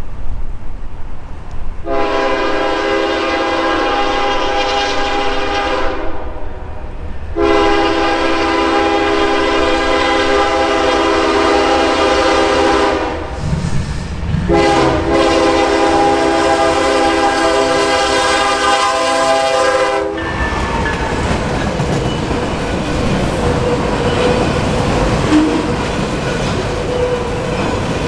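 Air horn of a Norfolk Southern GE ES44DC diesel locomotive sounding three long blasts for a grade crossing as the train approaches; the last blast cuts off about two-thirds of the way in. The locomotive and its autorack cars then roll past close by, wheels clattering over the rails.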